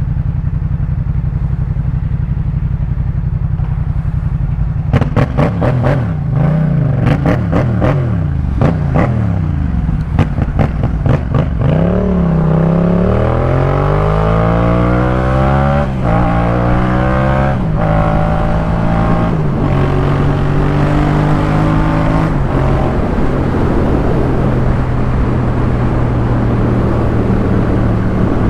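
Yamaha MT-07's 689 cc parallel-twin engine through a Jeskap K4 full aftermarket exhaust: it runs steadily at low revs, then gives a quick series of sharp throttle blips. Around twelve seconds in it pulls away, the pitch rising through several upshifts about two seconds apart, and it settles into a steady cruise.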